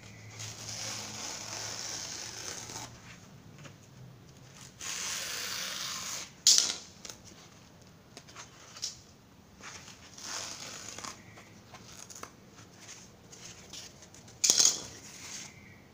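Utility knife drawn through a sheet of dense foam along a steel ruler: several long, scratchy cutting strokes. Two sharp knocks, the loudest sounds, come about six and a half seconds in and again near the end.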